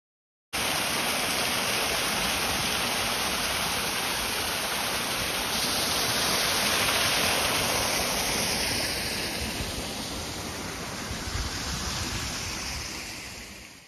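Steady rush of falling water from a small garden waterfall. It starts abruptly and fades out near the end.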